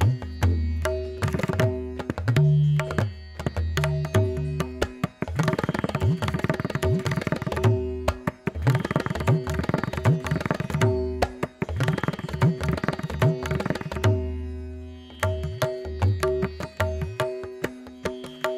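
Background music: rapid hand-drum strokes over a steady held drone, the drumming thickening into fast flurries in the middle and easing briefly about three-quarters through.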